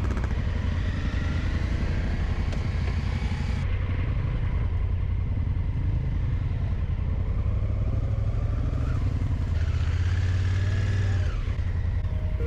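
Dual-sport motorcycle engine running under way, its pitch rising and falling with the throttle.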